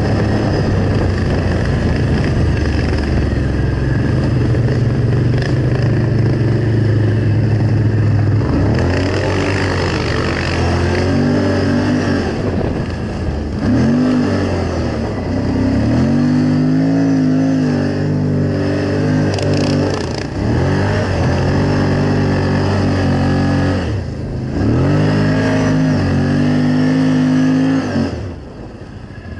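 Snowmobile engine running steadily under way, then revving up and down several times as the machine slows and manoeuvres, its sound dropping off sharply near the end.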